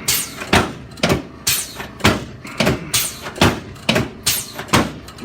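Regular thuds with a short swishing sweep, about two a second, evenly spaced.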